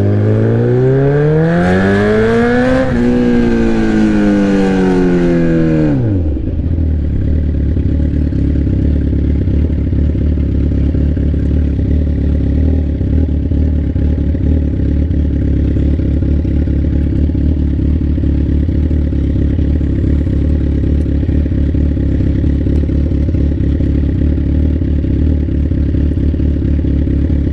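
Straight-piped sport bike exhaust, loud: the engine note climbs for about three seconds, falls away over the next three, then settles into a steady low drone.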